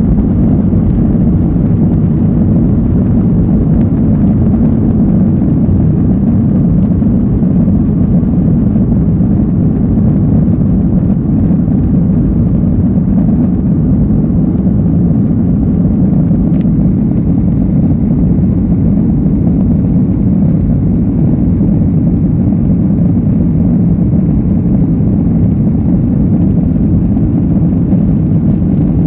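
Jet airliner engines at takeoff thrust heard from inside the cabin: a loud, steady rumble as the plane rolls down the runway, lifts off and climbs. A single brief click is heard about halfway through.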